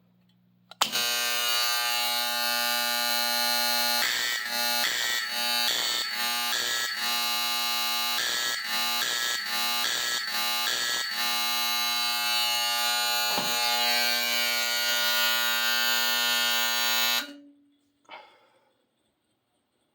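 Fire alarm sounder driven by a 1965 Honeywell W247B fire alarm control panel, giving a loud, steady buzzing tone. The tone is broken by two groups of brief interruptions, the panel's 4-4 master code. It cuts off suddenly, followed by a small click.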